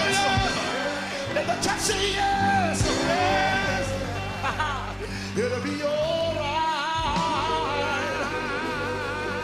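Male gospel quartet singing with instrumental backing. The voices sing sliding phrases, then hold long notes with a wide vibrato over the last few seconds.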